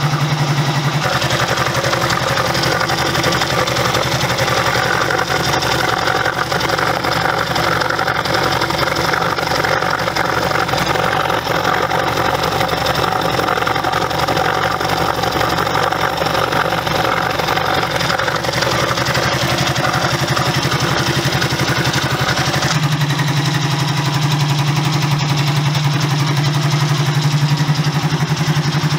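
Honda CB125 motorcycle engine idling steadily, with its exhaust baffles rattling. The sound changes in character about a second in and changes back a few seconds before the end.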